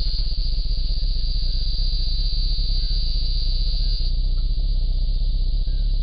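Steady low hum from a Bushnell trail camera's recording, with a steady high insect buzz over it. Faint short chirps come and go.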